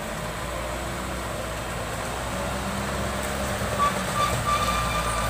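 Light dump truck's engine running steadily as the truck is driven slowly along a muddy dirt track, with a few brief high-pitched tones about four seconds in.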